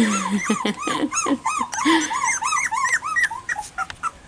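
Four-week-old cockapoo puppies whimpering: a steady run of short squeals that rise and fall, about three a second, with one low, falling whine right at the start.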